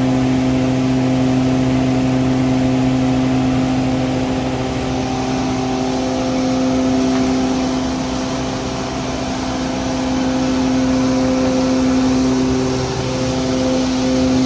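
A large 260 HP feed grinder running steadily: a loud, even machine hum holding one pitch, over a hiss from the grinding. About five seconds in, a lower part of the hum drops away and the hiss grows brighter.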